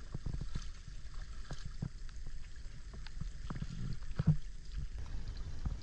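Wooden paddle strokes in the water beside a dugout canoe, with scattered knocks and splashes and one louder knock about four seconds in.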